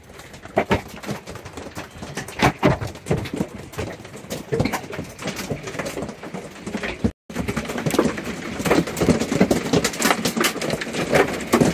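Hail pelting a truck camper's roof and shell: a dense, irregular patter of hard impacts that grows heavier in the second half, cutting out for a moment about seven seconds in.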